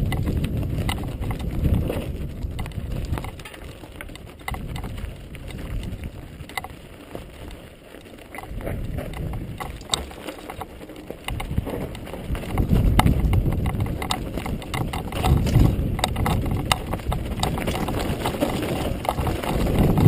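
Mountain bike riding fast down a loose, rocky dirt trail: wind rumbling on a helmet-mounted camera's microphone, with tyres crunching over gravel and rapid rattling clicks from the bike jolting over rocks. The rumble eases about four seconds in and builds again after about twelve seconds.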